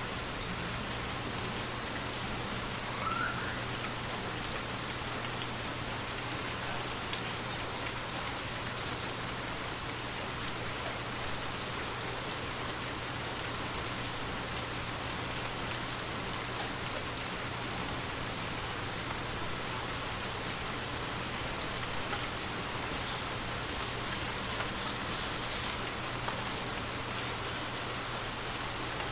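Steady rain falling: an even hiss of rain with scattered drop ticks.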